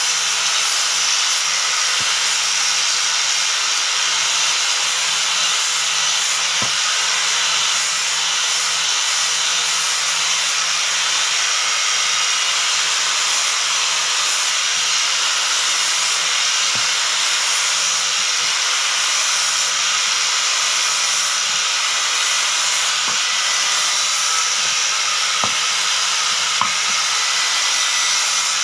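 Electric angle grinder with an abrasive disc running steadily and grinding a hardwood slab: a loud, unbroken whir with the hiss of the disc on the wood.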